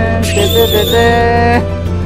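Background music: long held notes, the top one wavering slightly, over a steady low bass, changing chord about one and a half seconds in.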